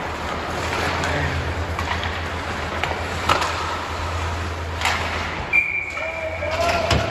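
Ice hockey game sounds in an arena: skates and sticks clattering on the ice over the steady hum of the rink, with a few sharp knocks. About five and a half seconds in, a short high whistle tone sounds for about a second.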